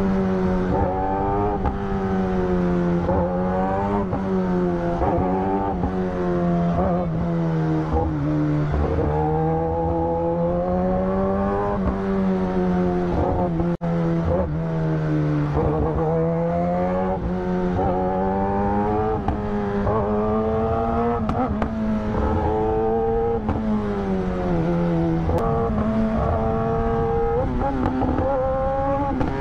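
Kawasaki ZX-10R superbike's inline-four engine running while riding at steady mid revs, its pitch rising and falling gently with the throttle. The sound drops out briefly about halfway through.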